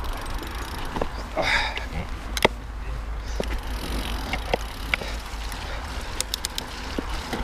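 Mountain bike riding over a rough, wet trail: a steady low rumble of tyres and wind on the camera, with the bike's chain and frame rattling in scattered sharp clicks and knocks.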